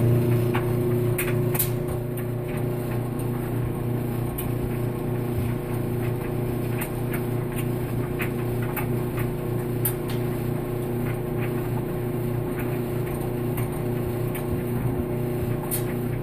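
Maytag Maxima XL clothes dryer running with a steady low hum and grinding, with scattered irregular clicks. This is the grinding noise it develops once it has warmed up.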